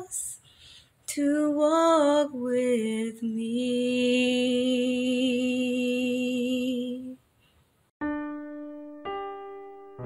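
A woman singing unaccompanied, ending on one long held note with vibrato. After a short pause, piano notes are struck twice and a chord begins near the end, ringing and fading.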